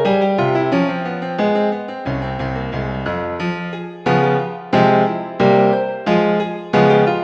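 Classical piano music. About four seconds in it turns to strong chords struck about every two-thirds of a second.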